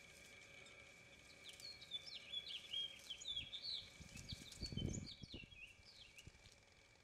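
Small songbirds chirping in quick runs of short rising and falling notes for a few seconds, over a steady faint high whine. A brief low rumble rises and fades about four to five seconds in.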